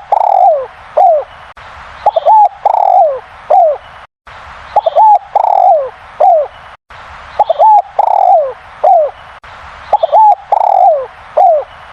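Spotted dove (derkuku) cooing loudly, repeating the same phrase about every two and a half seconds. Each phrase is two short notes followed by a longer and a shorter falling coo.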